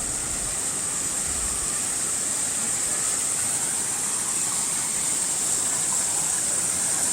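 Water running and splashing down a small cascade, not a true waterfall, as a steady rush that grows slightly louder.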